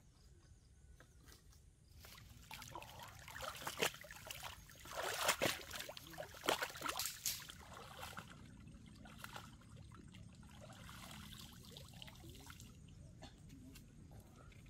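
Pond water splashing and trickling as something is dipped and pulled up out of it at the bank. The splashes start a couple of seconds in, are loudest in the middle, then die down to a faint trickle.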